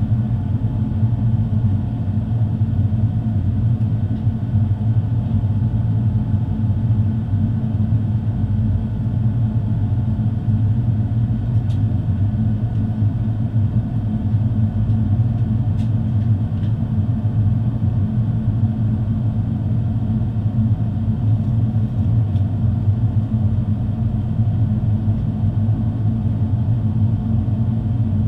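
Steady low cabin rumble of an Airbus A350 in flight, its Rolls-Royce Trent XWB engines and the airflow heard from inside the cabin at a window seat by the wing.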